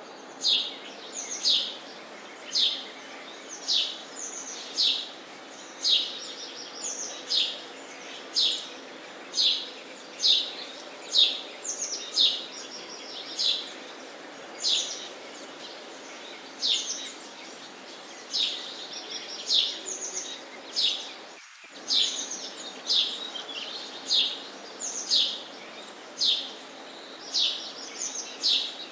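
Sparrow chirping: short, high chirps, each dropping in pitch, repeated steadily at roughly one to two a second, over a steady background hiss.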